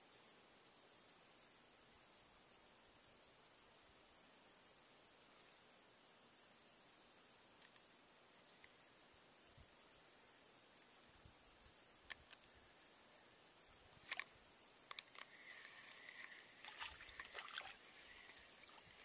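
Faint insects chirping: short high trills repeating about once a second over a steady thin whine. In the last few seconds, clicks and a rasping whirr as a spinning reel is wound in on a hooked fish.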